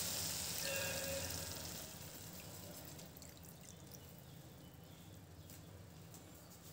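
Water poured from a steel tumbler into a pan of hot prawn masala, faint, fading over the first couple of seconds to a low steady hiss.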